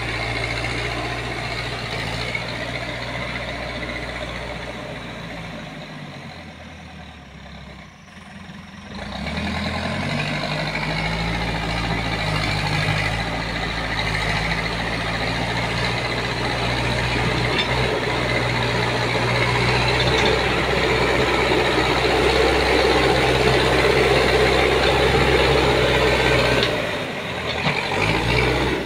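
Backhoe loader's diesel engine working as the machine pushes and spreads soil and gravel with its front bucket. The engine drops low for a few seconds about a quarter of the way in, then runs harder and louder under load, and eases off sharply near the end.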